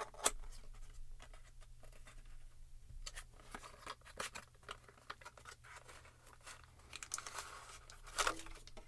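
Faint unboxing handling noises: scattered small clicks and rustles of plastic packaging as a packet of earphone ear tips is opened and handled, with a louder crinkle near the end.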